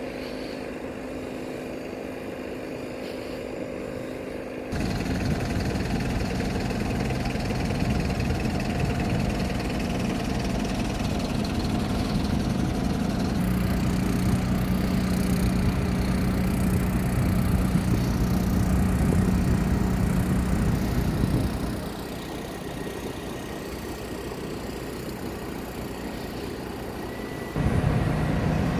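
Engines of fire engines and other emergency vehicles idling: a steady low running hum whose level jumps up and down abruptly a few times.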